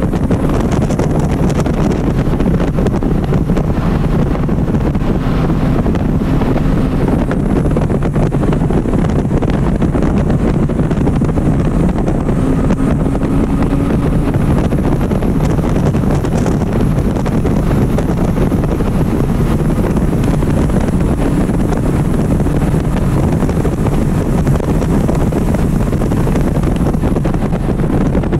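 Porsche Cayman R's flat-six engine running hard at high revs in fourth gear at full speed on track, heard from inside the cabin under heavy wind and road noise.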